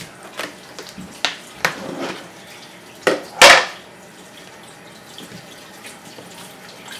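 Kitchen work on a countertop: several sharp knocks of bowls and utensils in the first half, then one short, loud rush of noise about halfway through.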